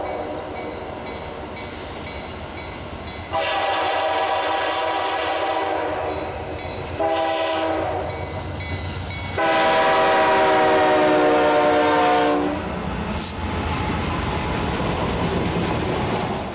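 Train horn sounding over the rumble and wheel clatter of a passing train. It gives a long blast, a short one, then a longer, louder blast, the sort laid in as a sound effect for the wooden trains on screen.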